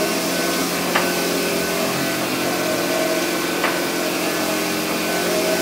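EFI VUTEk wide-format UV printer running, with a steady machine hum as its print carriage shuttles across the media. A light click comes about every two and a half seconds.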